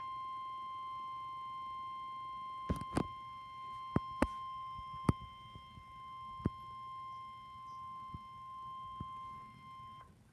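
NOAA Weather Radio warning alarm tone: a single steady high beep just above 1 kHz, held for about ten seconds before a severe thunderstorm warning is read, then cutting off. A handful of sharp clicks sound over it in the middle.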